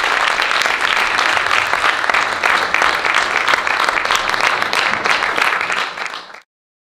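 Audience applauding, a dense mass of clapping that fades and cuts off suddenly about six seconds in.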